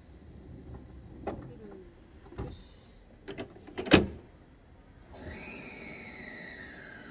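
Electric train's doors sliding shut, with a few clicks and a loud thump about four seconds in. About a second later the train's motors start up with a high whine that slides down in pitch as it begins to pull away.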